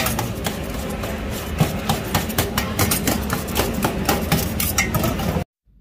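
Metal spatula clattering and scraping on a steel shawarma tray as sliced chicken shawarma is chopped and tossed with onions, a rapid, irregular run of sharp clinks over steady kitchen noise. It cuts off suddenly near the end.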